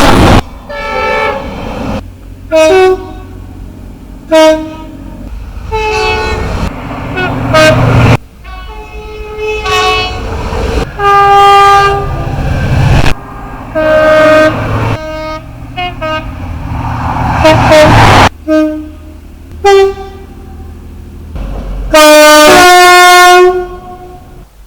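A series of British train two-tone horn blasts, short and held notes sounding at different pitches in turn, with train running noise between them. The loudest is a long, very loud blast about 22 seconds in.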